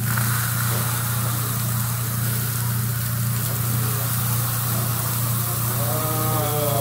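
Food sizzling on a hot teppanyaki griddle over a steady low hum, with voices coming in about six seconds in.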